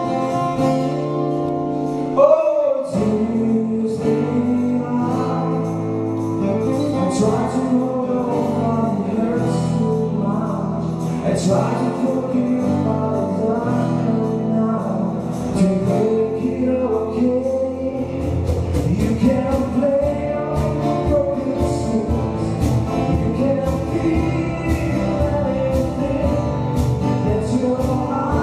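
Live acoustic band playing a slow pop song: acoustic guitar, upright double bass, drum kit and keyboard, with singing over it. The drums and bass fill out about two-thirds of the way through.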